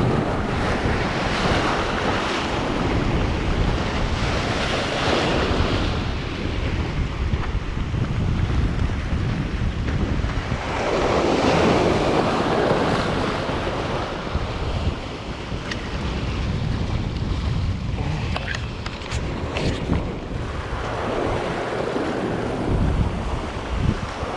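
Surf breaking and washing over the rocks of a jetty, swelling in surges about every ten seconds, with wind buffeting the microphone as a low rumble. A few light clicks near the end.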